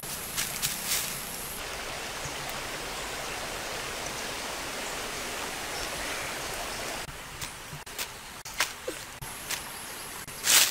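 Steady outdoor hiss, then from about seven seconds in a scatter of short snaps and rustles of leaves and stems being picked from a shrub and handled, a few louder ones near the end.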